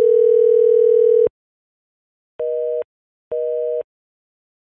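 Telephone call tones from a browser phone dialer: a long ringing tone cuts off about a second in, then two short beeps of a busy signal, half a second on and half a second off, as the dialled line is engaged.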